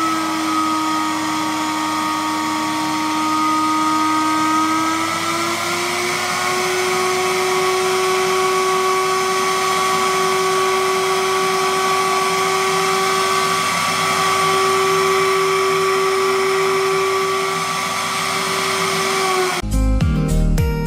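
Amaste 1200 W countertop blender motor running steadily with a whine, the pitch rising a little about five seconds in, then stopping near the end.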